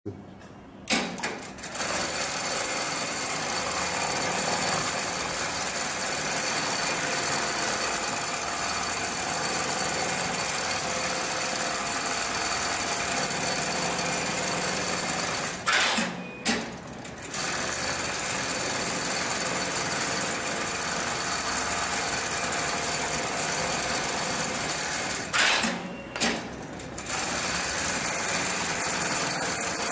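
Hightex programmable pattern sewing machine running steadily, stitching a programmed pattern through heavy material clamped in its moving frame. It starts about a second in and stops briefly twice, each pause beginning with a sharp clack.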